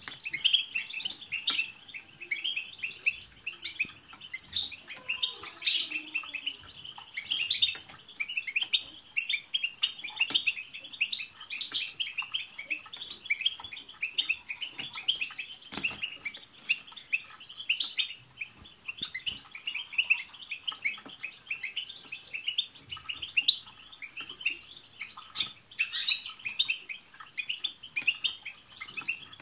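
A group of European goldfinches twittering in a continuous, dense stream of rapid chirps and trills, with a few sharper, higher notes scattered through.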